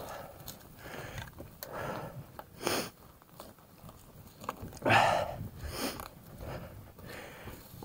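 A mountain bike rider breathing hard in regular puffs about once a second, the loudest about five seconds in, over the low rumble and rattling clicks of the bike rolling on a dirt trail.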